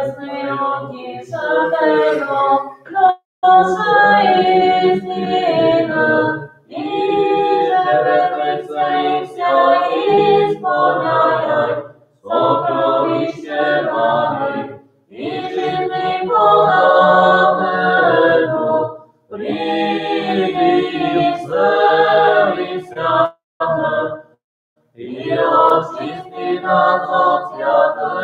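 Unaccompanied Eastern Slavic liturgical chant from a panakhida memorial service for the dead, sung in phrases of a few seconds with brief breaths between them.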